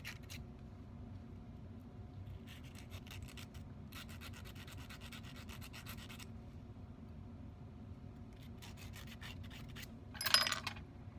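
Hand file scraping along the edge of a 14k gold ring band to take off ragged tags: several runs of quick filing strokes, with one brief, louder scrape about ten seconds in.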